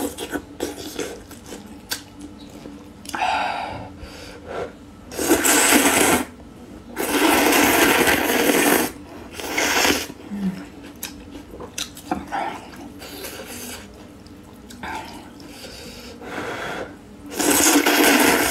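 A person slurping noodle soup loudly from a bowl: several long slurps of about one to two seconds each, with quieter chewing and mouth sounds between them.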